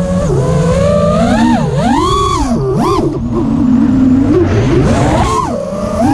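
Five-inch FPV quadcopter's brushless motors and propellers whining loudly. The pitch swoops up and down sharply several times with the throttle as it manoeuvres and rolls, and holds steadier for about a second just past the middle.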